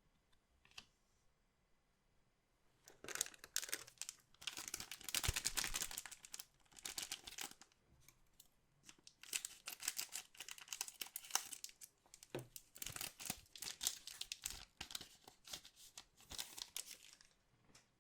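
Plastic or foil wrapping of trading-card packaging being torn open and crinkled by hand. It comes in crackly bursts from about three seconds in until near the end, after a single light tick.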